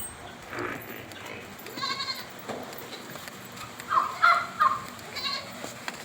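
Livestock bleating: about half a dozen short, high calls, with the loudest cluster about four seconds in.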